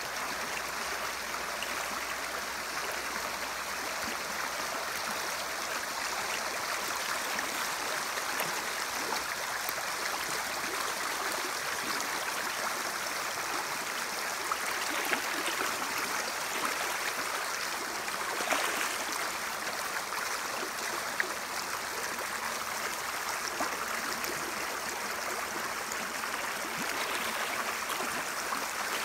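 Shallow creek running steadily over gravel, with a few brief splashes from spawning coho salmon thrashing in the water.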